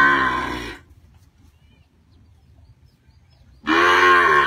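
Young zebu cow mooing twice, one call at the start and one near the end, each about a second long and arching up and down in pitch.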